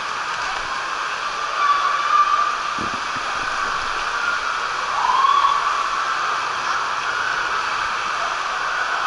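Steady rushing hiss of water in an indoor water park hall, echoing, with distant voices calling out about two and five seconds in.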